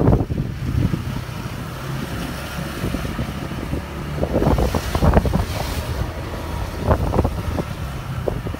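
Wind buffeting the microphone of a moving motorbike, with gusts about halfway through and again near the end, over the low, steady hum of its engine.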